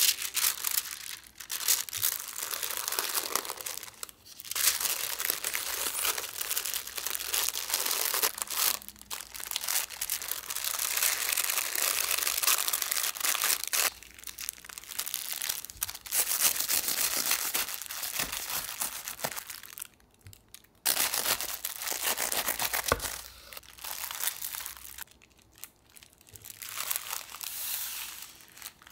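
Wax paper crinkling and rustling as it is folded and pressed tightly around a sandwich, in long stretches broken by short pauses.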